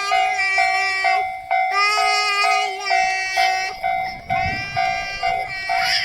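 Japanese railway level-crossing warning bell ringing its 'kan-kan', a steady tone repeating about twice a second. Long held pitched notes sound over it, twice for a second or two.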